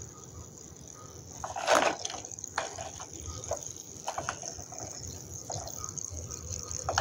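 Fingers dipping into water over soaked lumps of Nakumatt clay, with one splash about two seconds in, then scattered short wet squelches and clicks as the softened clay is pressed.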